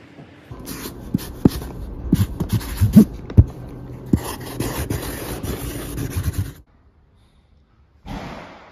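Felt-tip marker scratching across a cardboard box, close up, with repeated sharp taps and knocks of the pen and hand against the box. It stops abruptly, and a brief rustle follows about a second and a half later.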